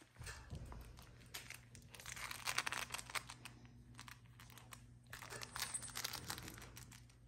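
Basset hound puppy chewing and tugging a plush toy, the fabric rustling and crinkling in irregular bursts with small clicks of teeth and paws.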